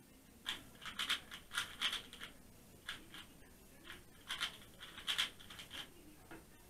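Valk 3 speedcube being turned by hand: quick runs of plastic clicking turns, starting about half a second in, with short pauses between runs.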